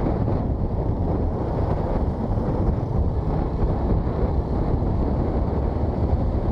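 Wind rushing over the microphone of a motorcycle-mounted action camera at riding speed, a steady low rumble with the motorcycle's engine and tyre noise underneath.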